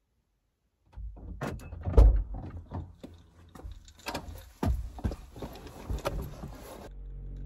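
Driver's door of a Mazda car being opened and someone climbing into the seat: latch clicks, several heavy thumps, the loudest about two seconds in, and clothing rustling as she settles. Close to the end these give way to a steady low hum inside the car.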